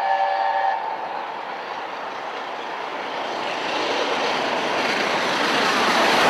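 Gresley Class A4 steam locomotive's chime whistle, a chord of several notes that stops about a second in. It is followed by the rush of the locomotive and its train passing at speed, growing steadily louder.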